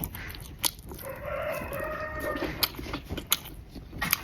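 A rooster crowing once, a single held call of about a second and a half, with a few sharp clicks around it.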